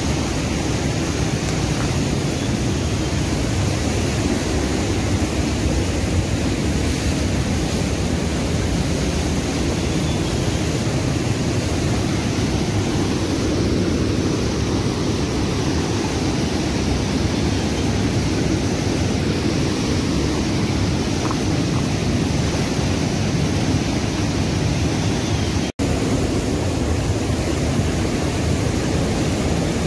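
Rushing white-water rapids of a fast mountain river: a loud, steady roar that cuts out for an instant about 26 seconds in.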